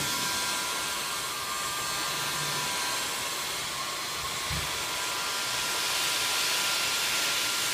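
Electric heat gun running steadily: a continuous rush of blown hot air with a faint motor whine.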